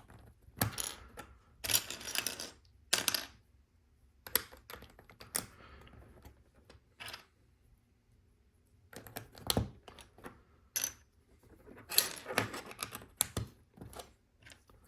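Plastic LEGO bricks clicking and rattling as pieces are handled and pressed onto the build, in irregular bursts of sharp clicks with a short pause about halfway through.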